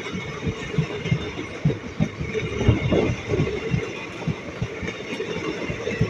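Passenger train coaches rolling past close by on departure, the wheels clattering over rail joints in an irregular run of low thuds over a steady rumble.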